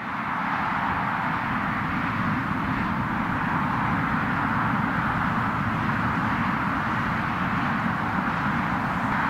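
Twin-engine jet airliner on short final approach: a steady rushing jet-engine noise at landing-approach thrust.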